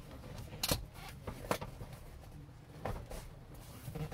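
A few sharp clunks and knocks from a car's front seat and its mounting hooks as the seat is lifted and pulled back to unhook it, the loudest about a second in, over a low steady hum.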